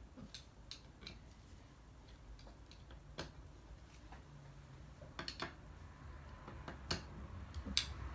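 Faint, irregular small clicks and light knocks of a plastic-and-metal LED floodlight and its cable being handled and set down on a table, a little louder in the second half.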